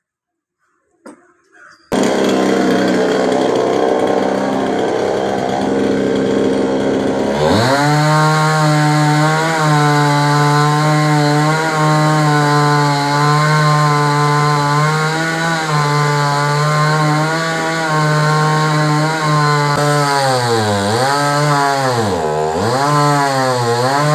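Chainsaw engine running. It starts abruptly, runs at a lower pitch for about five seconds, then revs up to a steady high-pitched run. Near the end the pitch dips and recovers three times.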